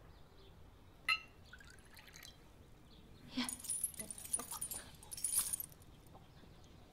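A drinking glass clinks once about a second in, followed a couple of seconds later by faint liquid sounds of a drink being poured and sipped from the glass.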